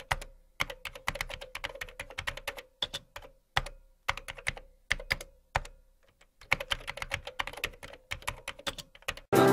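A marker pen writing capital letters on paper: quick clusters of short, sharp stroke sounds with brief pauses between letters. Music comes in suddenly near the end.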